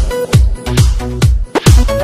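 Instrumental break of a Persian pop song: an electronic dance beat with a kick drum about two and a half times a second under steady synth notes.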